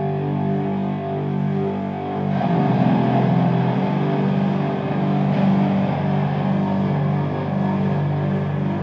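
Rock music: a band playing a repeating low riff on distorted electric guitar, getting fuller and louder about two seconds in.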